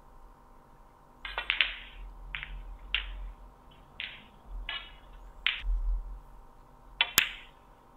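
Snooker balls clicking: the cue striking the cue ball and balls knocking together as a black and then a red are potted, a series of short knocks with the sharpest click near the end.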